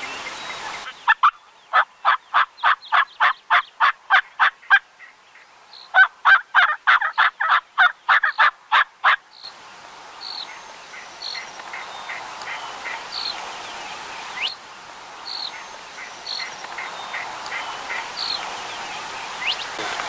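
Turkey yelping in two long runs of evenly spaced hen yelps, about five a second, each run lasting three to four seconds. After that, small birds chirp now and then.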